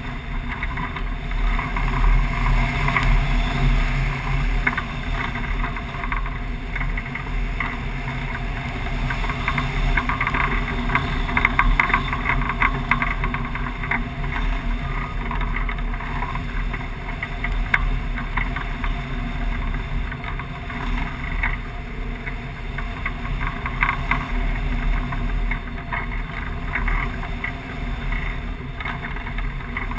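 Wind rushing over the microphone of a camera mounted on a hang glider's wing in flight: a steady low rumble of buffeting air with irregular crackling.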